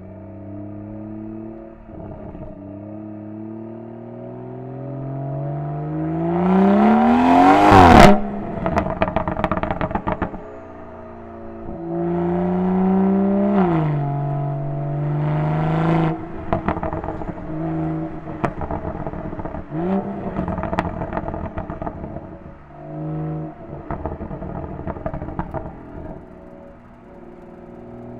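BMW 340i's B58 turbocharged straight-six with M Performance exhaust, pulling hard with a rising pitch to a loud peak about eight seconds in, then lifting off into a string of exhaust pops and crackles. It accelerates and backs off again twice more, crackling on the overrun between pulls.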